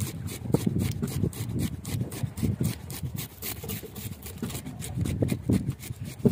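Small knife sawing back and forth through a whole fish on a plastic cutting board: a quick, even scraping stroke several times a second.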